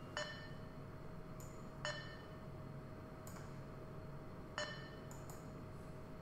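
Coordinate measuring machine with a touch-trigger probe running an automatic program, giving a sharp click with a short ring at each probe touch. There are three strong clicks about two seconds apart and fainter ones between them, over a steady machine hum.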